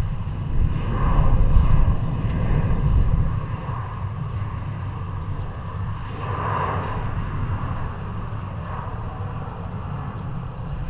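Jet airliner engines rumbling, growing fainter after about three seconds.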